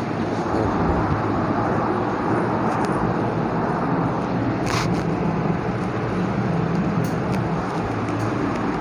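Steady background noise with a low hum, and a brief hiss about halfway through.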